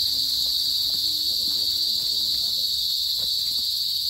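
Steady, high-pitched insect chorus, an unbroken shrill drone with no pauses.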